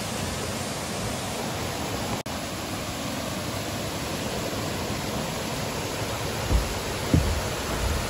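Steady rushing of a waterfall and river. It cuts out for an instant about two seconds in, and a few low thumps come near the end.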